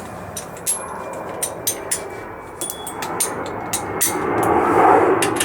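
Irregular sharp metallic clicks and clinks of hand tools working on a motorcycle's rear axle and chain adjusters, over a steady background rumble that grows louder about four seconds in.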